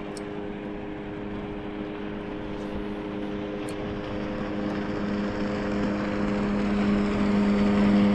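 A boat motor running at a steady pitch, a constant hum growing steadily louder, as the boat heads off to a new fishing spot.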